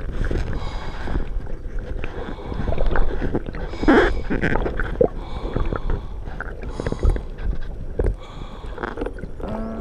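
Underwater rush of water and bubbling around a diver being pulled along by a diver propulsion vehicle, with scattered knocks and clicks against the camera housing.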